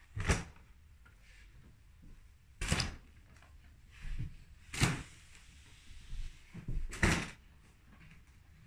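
A series of short, sharp knocks, four loud ones about two seconds apart with a few fainter ones between them.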